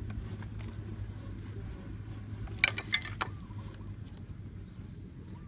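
A short cluster of sharp clicks and taps a little under three seconds in, from hand tools and pliers working on a plastic PVC pipe, over a steady low hum.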